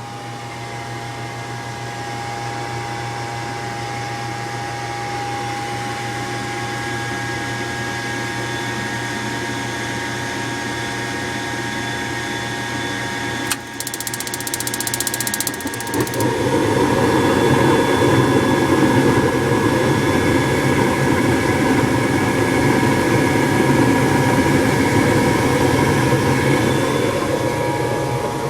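Rheem Criterion II gas furnace starting its cycle after its sticking pressure switch was tapped free. The inducer motor hums steadily. About halfway through there is a click and a couple of seconds of fast ticking, then a louder steady rush sets in as the burners light.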